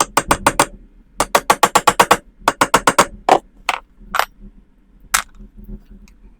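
Three quick runs of sharp knocks, about eight a second, then four single knocks spaced out over the next couple of seconds, from hands-on tool work on the wooden post bracing.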